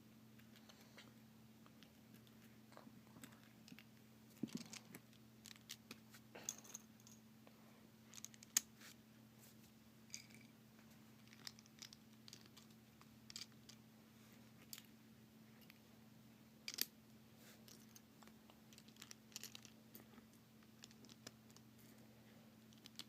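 Small plastic speed-cube pieces (an Aosu GTS2 M 4x4) clicking and tapping against each other as they are fitted together by hand: scattered light clicks, a few sharper ones, over a faint steady hum.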